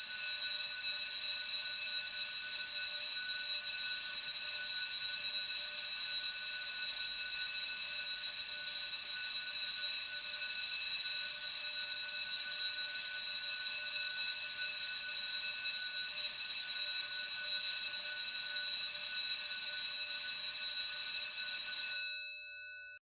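Electric school bell ringing continuously, starting abruptly. Near the end the ringing stops and the gong rings out briefly before fading.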